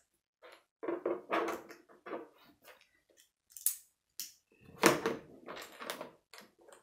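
Plastic Lego bricks clicking and clattering as they are pressed together in the hands and picked from a loose pile on a tabletop, in irregular bursts with the loudest clatter about five seconds in.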